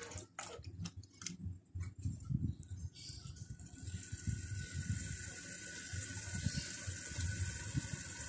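A metal ladle knocks and scrapes against a large metal pot a few times, then beef and spiced masala fry in oil with a steady sizzle.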